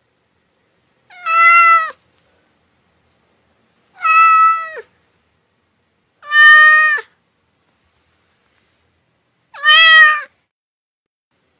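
Domestic cat meowing four times, every two and a half to three seconds. Each meow lasts under a second, holds an even pitch and drops at the very end.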